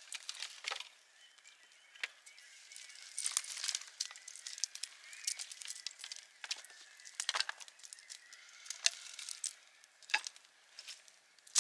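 Irregular crinkling and rustling: a string of short, sharp little clicks and scrapes at uneven intervals.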